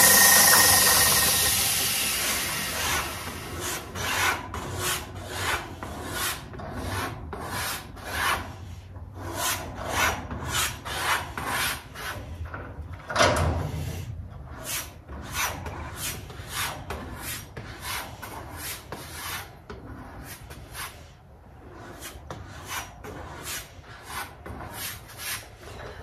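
Knife edge stroked back and forth on a hand-held strop paddle, quick even rubbing strokes about two a second, to deburr and finish the edge after belt sanding. A belt sander is spinning down and fading over the first couple of seconds.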